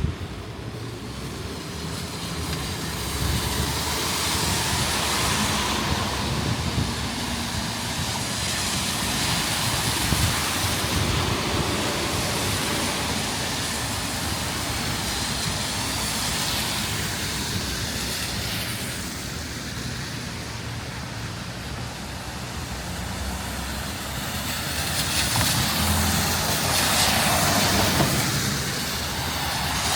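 Rain with traffic on a wet street: tyres hissing on the wet road, swelling and fading several times as vehicles pass.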